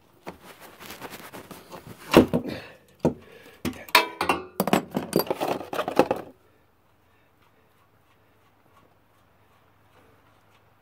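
Metal tools clinking and knocking irregularly against the generator while the oil drain plug is worked loose with a wrench. The clatter stops abruptly about six seconds in, leaving only a faint low hum.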